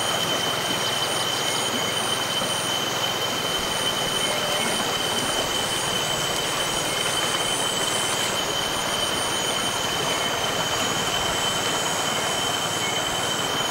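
Shallow river rushing over stones and snags in an even, steady wash, with a constant high-pitched insect drone over it and a faint higher pulsing that shifts about eight seconds in.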